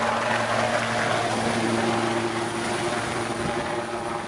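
Helicopter running with a steady rotor and engine drone and a few held tones, slowly growing fainter.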